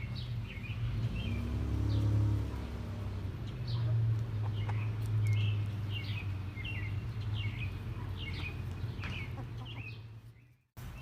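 Flock of backyard chickens chirping and clucking as they feed on thrown bread and food scraps, many short high calls over a steady low rumble. The sound drops out briefly near the end.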